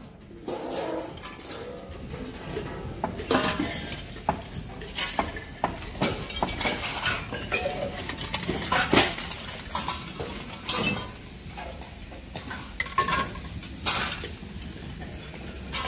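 Steel scrap from dismantled motors clanking and clinking as pieces such as casings, end covers and rings are tossed onto and sorted on the ground, with irregular metallic knocks about every second.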